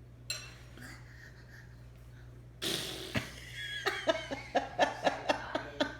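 A toddler's fake sneeze, one sudden breathy burst about two and a half seconds in, followed by a run of short bursts of laughter.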